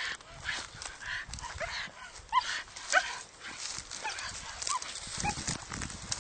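Hunting dog barking in short, high yelps, about six spread over a few seconds, among scattered knocks and rustling.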